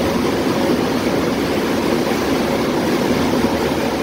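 Steady noise aboard a ship under way at sea: the engine's low hum mixed with water rushing past the hull.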